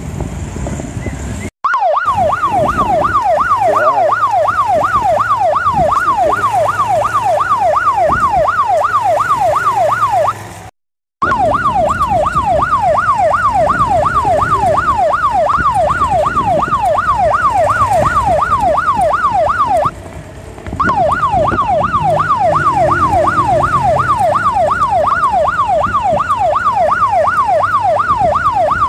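Patrol motorcycle's electronic siren in fast yelp mode, sweeping rapidly up and down about three to four times a second over engine and street noise. It starts about a second and a half in, cuts out abruptly near the middle, and drops out briefly about two-thirds of the way through before resuming.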